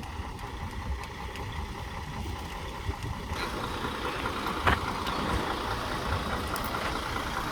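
Truck engine running with a steady low rumble. About three seconds in, the sound becomes noisier and brighter, and a single sharp knock comes a little over a second later.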